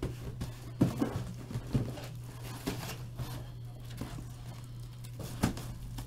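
Sealed cardboard boxes being handled and set down on a table, a few knocks and scuffs, with a sharper knock about a second in and another near the end, over a steady low hum.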